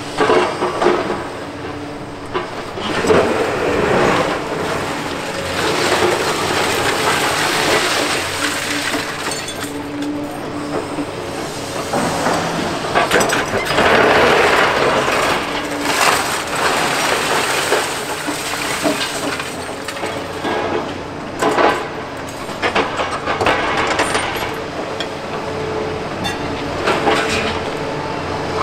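Liebherr 946 excavator demolishing a building: a steady din of crunching, scraping and clattering concrete and debris, with frequent sharp knocks and clinks of breaking material.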